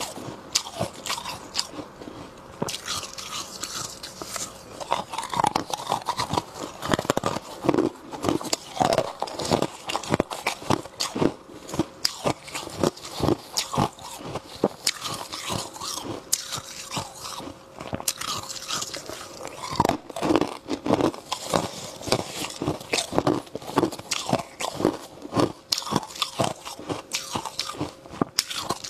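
Freezer frost being bitten and chewed close to a clip-on microphone: irregular, rapid crunching and crackling of soft, powdery ice between the teeth.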